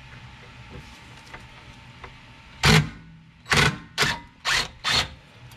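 Five short, loud metal-on-metal blows on the rear brake assembly: one alone, then four in quick succession about half a second apart, as the worn rotor is worked loose.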